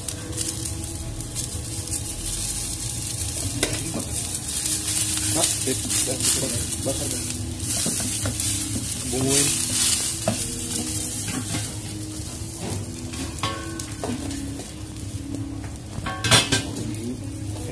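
Spaghetti frying in a wok with a steady sizzle, while a wooden spatula stirs and scrapes it against the pan in short clicks and knocks. There is one louder clack near the end.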